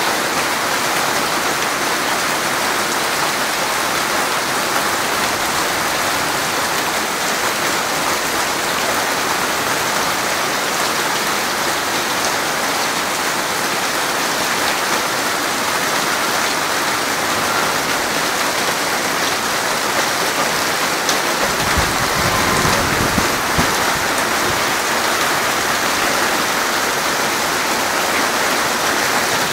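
Steady rain falling on the ground, an even hiss throughout. About two-thirds of the way in, a low rumble lasts for a couple of seconds.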